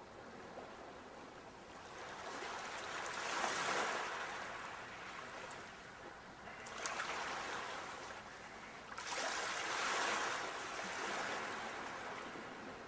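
Ocean waves breaking and washing up a shore, swelling and falling away three times, about every three seconds.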